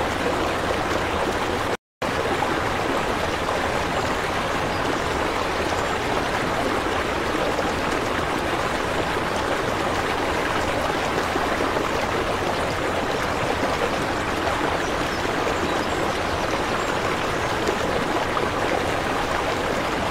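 Steady rush of flowing aquarium water circulating through the tank, which breaks off for an instant about two seconds in.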